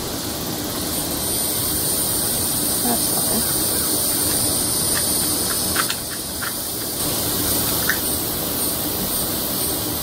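Steady hissing background noise, with a few faint light clicks around the middle from small items being handled on the table.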